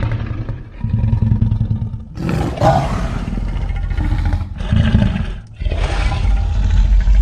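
Cartoon giant dinosaur roaring and growling: deep rumbling growls broken by a louder, higher-pitched roar about two seconds in.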